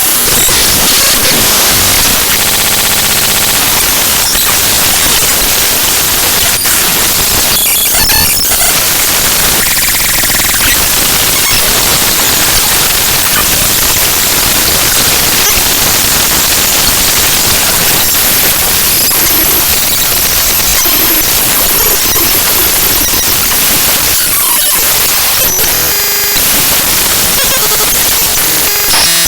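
Raw binary data of the ffmpeg.exe program file played back directly as audio: loud, harsh static-like noise, broken by short buzzy tones about two and a half seconds in and again near the end.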